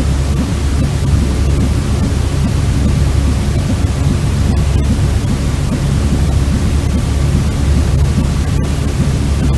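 Steady, loud white noise for soothing a baby, heaviest in the bass with a deep rumble, unchanging throughout.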